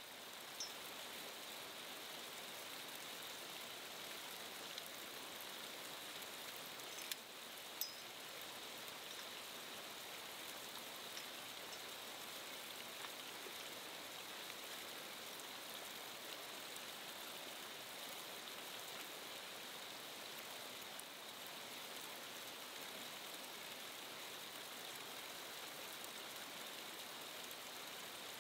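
Steady hiss of running water, with two faint clicks about seven and eight seconds in.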